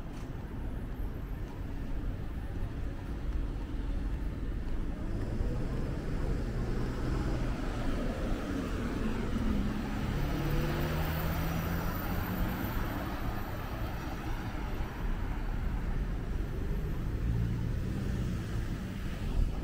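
Road traffic: cars running past. One vehicle passes close by about halfway through, and its engine note and tyre noise rise and then fade.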